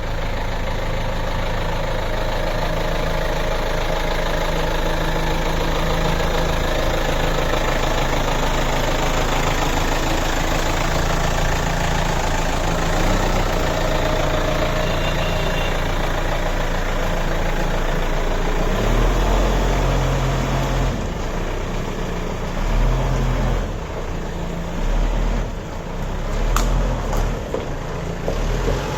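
Bobcat B900 backhoe loader's diesel engine running steadily. In the last third its low note swells and drops unevenly as the machine is worked, with one sharp click near the end.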